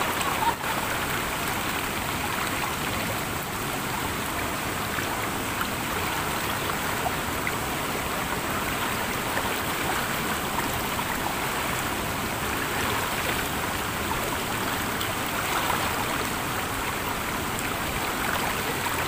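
Mountain river water rushing steadily over boulders between rock pools, a continuous even splashing with no letup.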